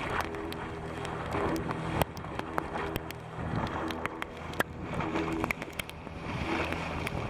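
A motor running steadily, with scattered clicks and knocks over it.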